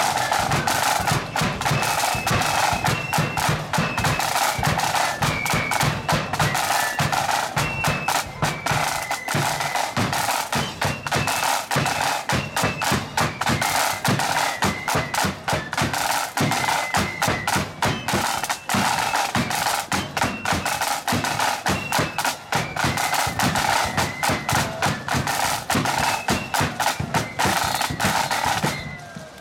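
Marching band playing: massed side drums rattling and a bass drum beating under a high flute melody. The music stops abruptly about a second before the end.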